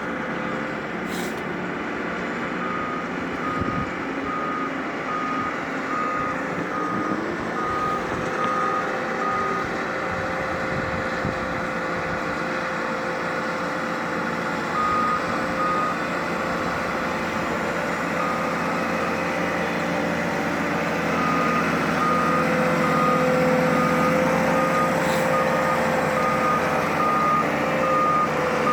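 A diesel work vehicle's backup alarm beeping at one pitch, about two beeps a second, over its steady engine; the beeping stops for a while in the middle and resumes, with the engine growing louder, in the later part.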